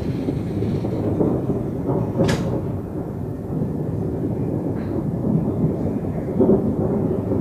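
Thunder rumbling continuously during a thunderstorm, with a sharp crack about two seconds in and a swell in the rumble near the end.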